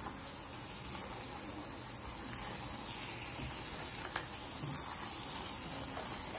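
Custard halwa sizzling in hot ghee in a kadhai as it thickens, stirred with a silicone spatula: a steady hiss with a few faint ticks, the sharpest about four seconds in.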